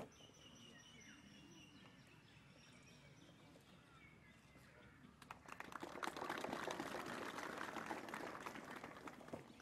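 Faint high bird chirping, then a crowd applauding: a dense patter of clapping that starts about five seconds in and stops just before the end.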